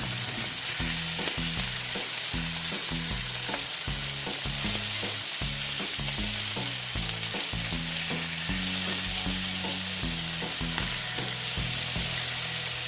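Salmon fillet frying in hot olive oil in a pan, a steady sizzle.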